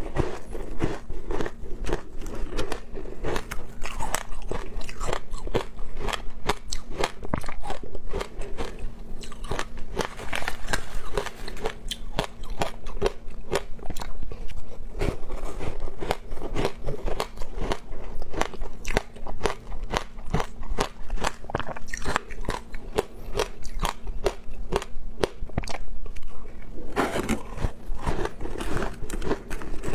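Ice chunks coated in passion fruit pulp being bitten and chewed, a fast, irregular run of crisp crunches.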